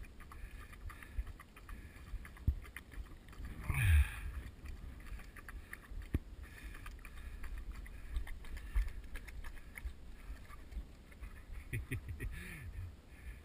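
Harnessed dog panting hard after a run, over a low rumbling noise on the microphone. About four seconds in comes a short sound falling in pitch, the loudest moment.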